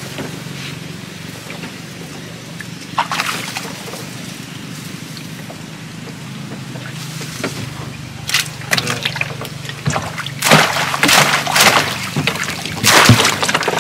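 Water sloshing around a small paddled boat, then from about eight seconds in a wire-mesh fish trap being hauled out of the canal, with water splashing and streaming off it, loudest near the end.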